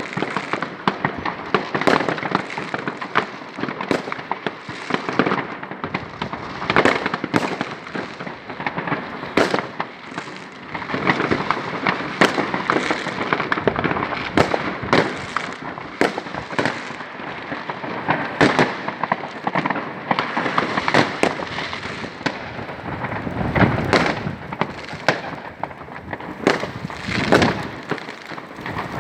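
Fireworks and firecrackers going off continuously: a steady crackle of many small bangs, with louder single reports standing out every second or two.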